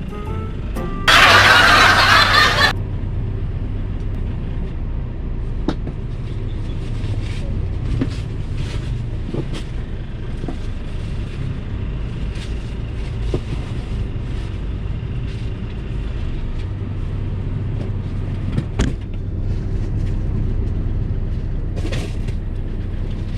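Steady low rumble like a running vehicle, with a loud burst of hiss lasting about a second and a half near the start and scattered light knocks.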